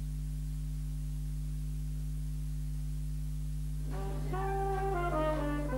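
Steady low electrical hum of a few fixed tones. About four seconds in, music starts with held notes that step downward.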